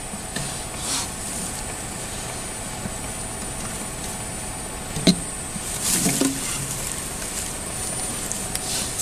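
Steady background hiss with a faint high whine, then a sharp click about five seconds in and a short rustling a second later.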